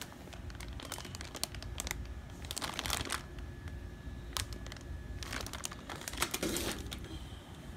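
Plastic packaging bag crinkling as it is picked up and handled, in several short bursts.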